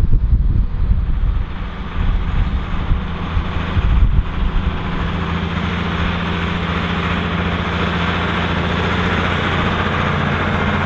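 Volvo BM 814 tractor's diesel engine running, uneven for the first few seconds and then settling into a steady note.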